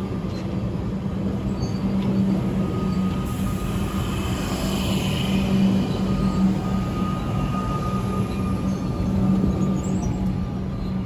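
Electric suburban train running past along the platform at close range: a steady rumble of wheels on rail with a constant low hum and a thin high whine above it.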